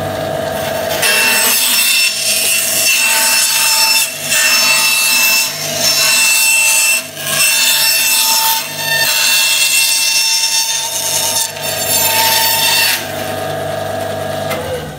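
Bandsaw running with a steady hum while its blade cuts a thin plywood disc, the workpiece turned on a circle-cutting jig's pivot. The cutting noise starts about a second in, breaks off briefly a few times as the hands shift their grip, and stops a couple of seconds before the end.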